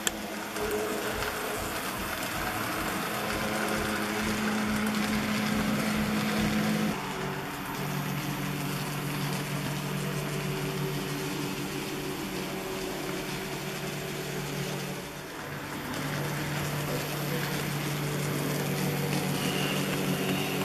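Model train running on the layout: the N-scale locomotive's electric motor gives a steady hum over the rumble of the wheels on the track. The hum's pitch jumps to a new steady note twice.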